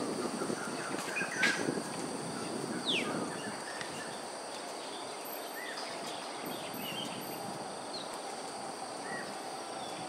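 Outdoor bird and insect ambience: scattered short bird chirps, including one quick falling call about three seconds in, over a steady high insect drone. A low rushing noise fades away over the first three seconds.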